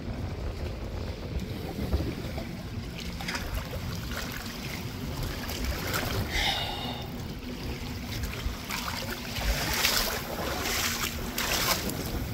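Wind rumbling on the microphone, over a faint steady hum. A short high-pitched sound comes about six seconds in.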